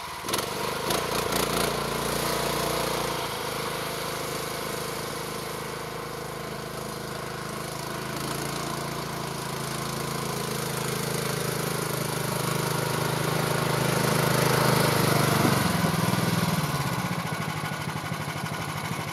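The small engine of a Yeti stand-on tracked snow machine runs steadily, growing louder as the machine comes closer. About three-quarters of the way in, the engine note drops as it slows toward idle.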